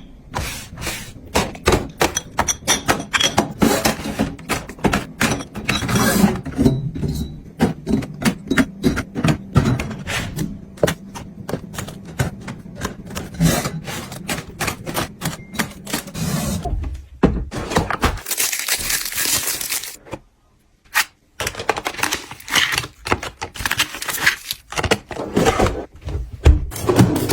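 Hard objects being handled and set down: a rapid, irregular run of taps, clicks and knocks. A burst of hiss comes about 18 seconds in, followed by a brief pause.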